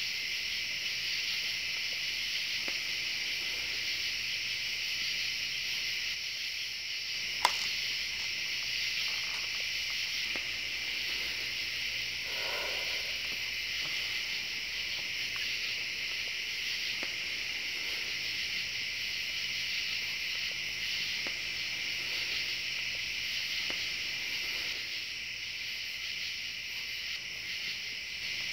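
Steady night chorus of crickets, an unbroken high-pitched hum. A single sharp click about seven and a half seconds in.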